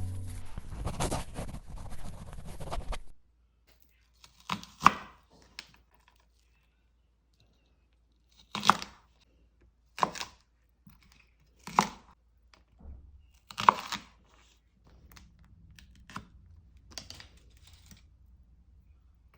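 Kitchen food preparation for chicken and green-onion skewers. A dense tearing rustle fills the first three seconds, then about seven short separate rasping strokes follow every couple of seconds, with quiet in between.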